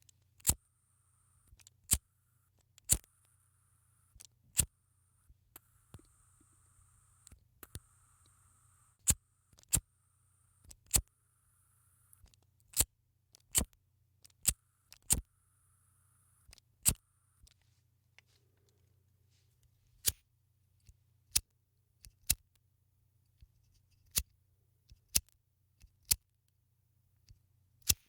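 A lighter being struck again and again, a sharp click every second or two. A faint hiss sounds between the clicks for roughly the first two-thirds, then stops, leaving only the clicks.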